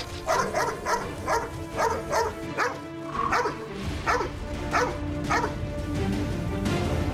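Doberman barking in a rapid run of about a dozen sharp barks that stops about five seconds in, over background music.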